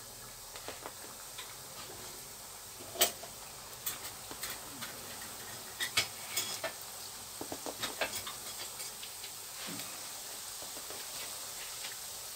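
Hot oil sizzling in a frying pan as Tunisian yoyo doughnut rings fry, with scattered sharp pops and crackles, the strongest about three and six seconds in, as more dough rings are slid into the oil.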